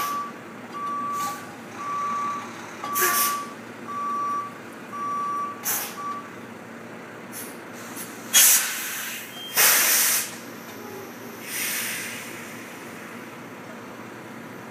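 Tractor-trailer backing up: its reverse alarm beeps about once a second and stops about six seconds in. Its air brakes give several short hisses, the two loudest about two-thirds of the way through.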